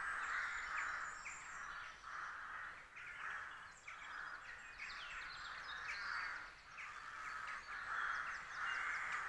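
Crows cawing over and over, a harsh call about once a second, with smaller birds chirping thinly above them.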